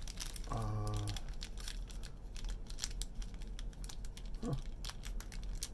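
Small plastic parts bag being torn open and worked by hand: an uneven run of crisp crinkles and small clicks.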